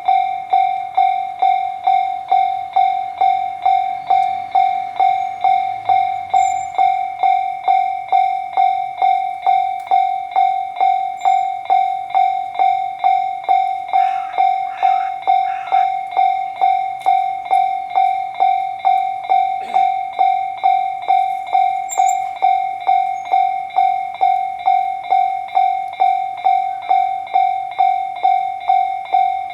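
Japanese railroad crossing warning bell ringing a steady, even 'kan-kan' at about two strikes a second, one clear ringing tone.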